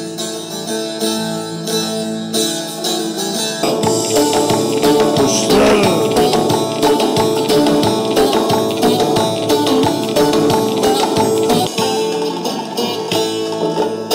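Turkish folk music accompanying a seymen dance, with held notes over percussion; it grows louder and fuller about four seconds in.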